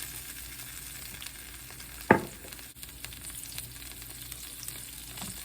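Sautéing in hot oil in a wok: a steady sizzle, with one sharp knock about two seconds in.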